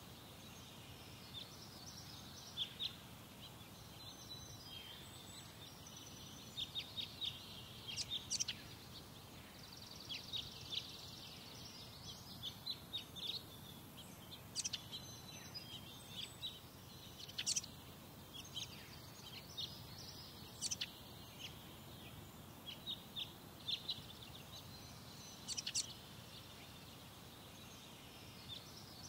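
Birds chirping: many short, sharp, high-pitched chirps in irregular clusters, over a faint steady low background noise.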